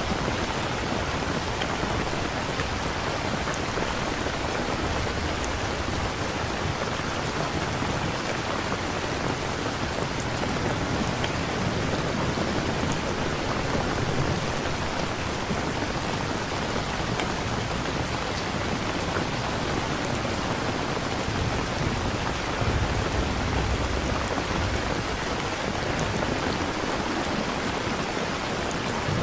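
Steady rain falling, with a low rumble of distant thunder now and then.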